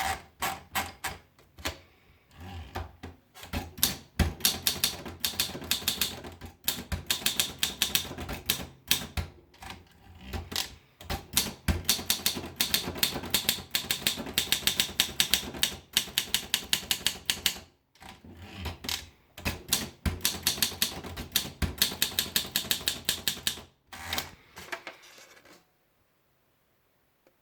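Olympia SM2 portable manual typewriter being typed on: fast runs of sharp key strikes broken by short pauses, falling silent near the end.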